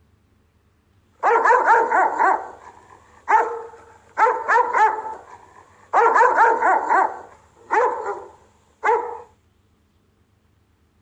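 Rottweiler barking as a guard dog, in six volleys of quick barks, the first starting about a second in and the last, a single short bark, about nine seconds in.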